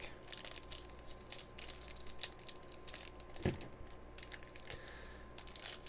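Foil trading-card pack wrapper crinkling as it is handled and turned over in the hands, a run of scattered small crackles, with one soft knock about three and a half seconds in.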